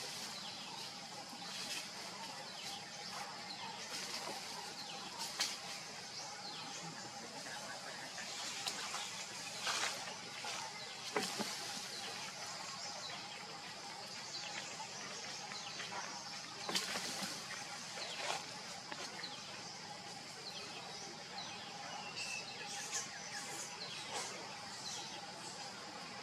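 Outdoor ambience: a steady high-pitched hiss and hum with a few short sharp clicks or snaps scattered through it.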